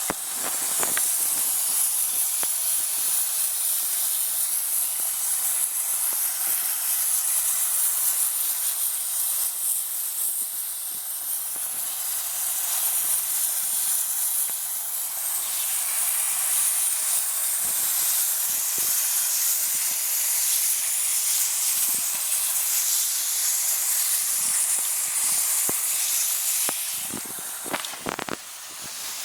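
Garden-hose water spraying steadily through a homemade coil-rinsing tool onto a dehumidifier's evaporator and condenser coils, a constant high hiss that eases and breaks up near the end.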